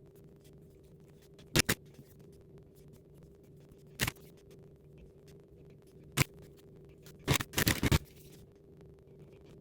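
Sparse sharp clicks and taps of objects being handled: a quick double click about a second and a half in, single clicks around four and six seconds, and a rapid cluster of clicks and scrapes just past seven seconds, over a faint steady hum.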